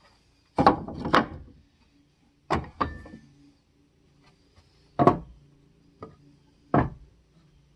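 Pine 1x2 boards knocking and clattering as they are handled and set down: a string of sharp wooden knocks, the first ones in quick pairs.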